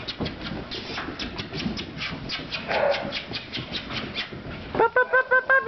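English springer spaniel puppies at play: a run of light clicks and scuffles as they tussle with a rope toy, then a quick burst of about six high-pitched puppy yips near the end.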